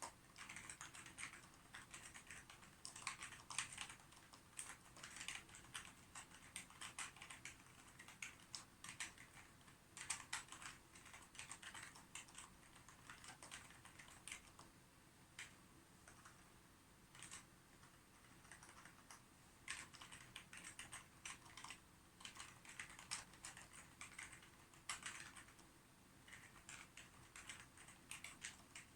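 Typing on a computer keyboard: quick runs of key clicks with brief pauses between them.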